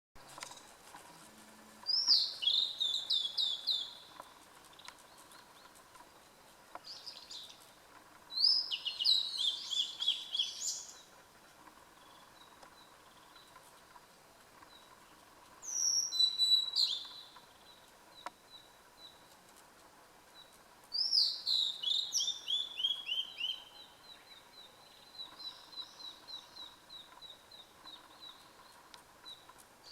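Blue-and-white flycatcher singing: four phrases of clear whistled notes that tumble down in pitch, each lasting two to three seconds and separated by pauses of several seconds, with a softer run of short repeated notes near the end.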